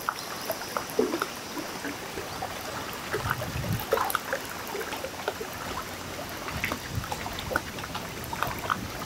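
Water lapping and trickling against a boat's hull, with scattered small knocks and ticks.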